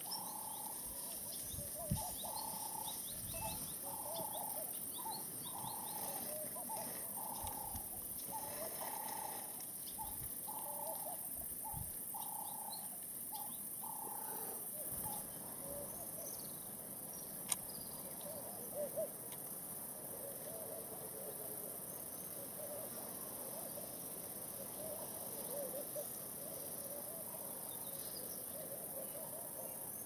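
Bush ambience at a waterhole. Birds call in a series of short repeated notes, which give way about halfway through to softer trilling, over a steady high insect hiss. Two sharp clicks stand out, one near the start and one past the middle.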